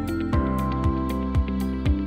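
Background music with a steady beat, a low kick about twice a second under sustained chords.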